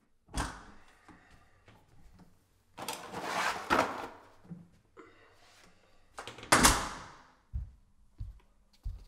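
An apartment door: a sharp click of the latch, a longer scraping, rustling noise around three seconds in, and about six and a half seconds in a loud thud as the door shuts, followed by a few soft footsteps.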